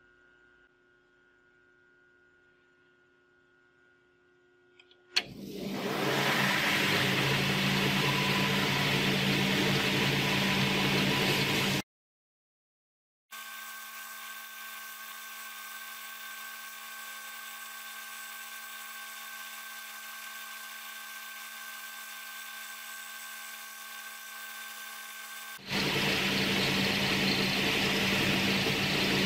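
A stationary belt sander switches on about five seconds in and runs steadily, with the rasping hiss of a wooden knife handle being sanded to shape on the belt. The sound cuts off abruptly around twelve seconds, and a quieter steady machine hum follows. Loud sanding starts again near the end.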